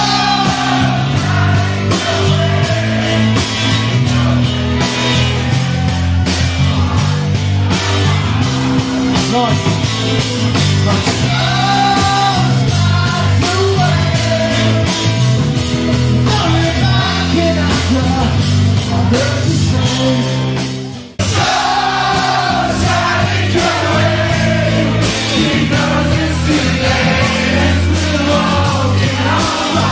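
Live rock band playing through a PA: electric guitar, bass guitar and drums with a male singer on microphone. About two-thirds of the way through, the music fades briefly and then comes back abruptly.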